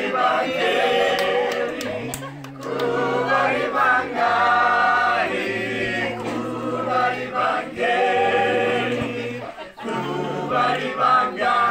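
A mixed group of men and women singing a song together in chorus, in phrases with brief breaks between them.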